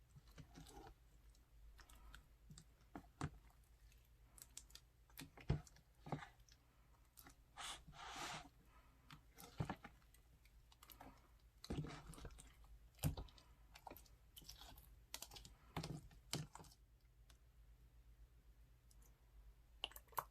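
Crunchy slime being squeezed and worked by hand, giving irregular clicks and short crackly bursts with quiet gaps between them.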